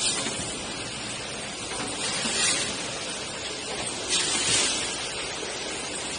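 Automatic premade-bag filling and packing machine running: a steady mechanical hiss with short, louder hissing surges about every two seconds.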